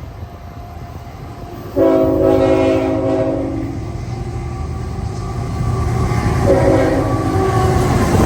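Locomotive air horn on a Canadian National train sounding a chord of several tones: one long blast starting about two seconds in and lasting about two seconds, then a shorter blast a few seconds later, over the steady rumble of the train.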